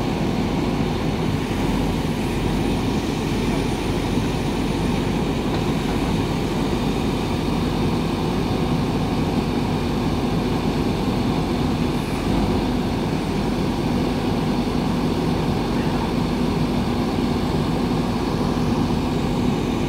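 JCB 3DX backhoe loader's diesel engine running steadily while the backhoe arm is worked over the culvert pipe.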